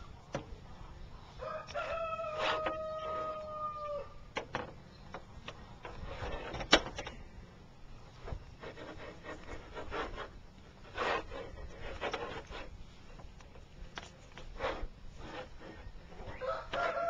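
Rooster crowing twice: one long, held crow about two seconds in and another starting near the end. Scattered clicks and rubbing sounds in between.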